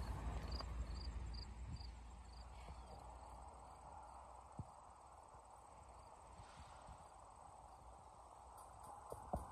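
Faint outdoor quiet with an insect chirping a few times a second during the first two seconds, over a low wind rumble; after that only a faint steady hiss.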